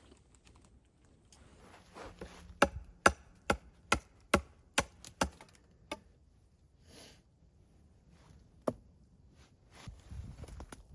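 Hammering: eight sharp blows about two a second starting a couple of seconds in, then one more single blow near the end.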